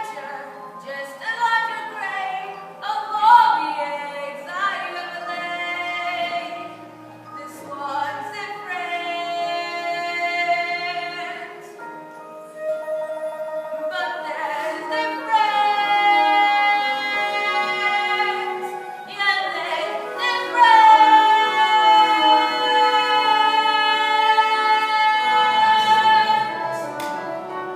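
A song from a stage musical: a voice singing with musical accompaniment, with several long held notes.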